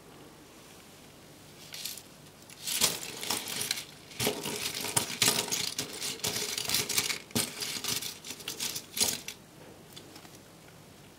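Small plastic Lego pieces clattering and clicking against each other and the tabletop, a dense run of rattles from about two seconds in to about nine seconds in.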